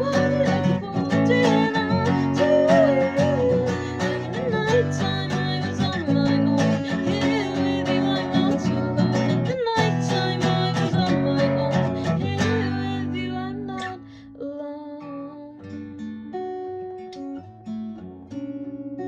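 Closing passage of a song, led by acoustic guitar strumming with a full arrangement and sharp percussive strokes. About 13 to 14 seconds in it thins out to quieter, sparsely picked guitar notes.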